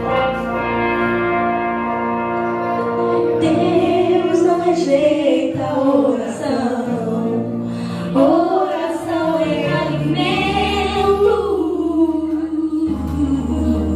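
Gospel worship music: sustained instrumental chords, joined about three seconds in by a woman singing a long, gliding melodic line.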